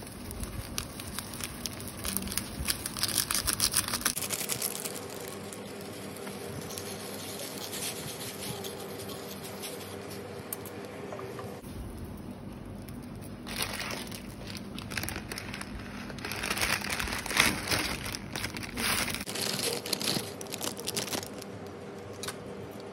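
Plastic and foil instant-noodle packets crinkling and tearing in two spells, a few seconds in and again through the second half, with a faint steady hum underneath.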